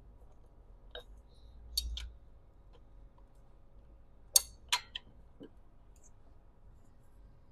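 Hand tools and engine parts clinking while the oil separator is taken apart: scattered sharp metallic clicks, the loudest pair about four and a half seconds in.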